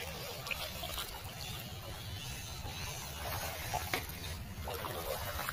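MN99S 1/12 scale RC Land Rover Defender 90 crawling over loose river stones: scattered clicks and knocks of tyres and rocks over a steady low rumble.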